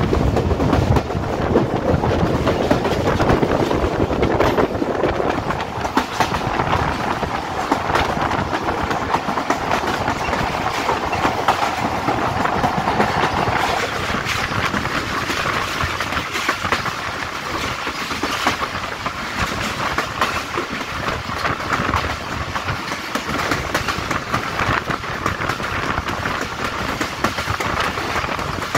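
Wheels of a PT Inka passenger coach running at speed on the rails, a steady rumble full of clicks and clatter from the track, with wind rushing past, heard from the side of the moving coach. A little past halfway the deeper part of the rumble drops away and the noise turns lighter.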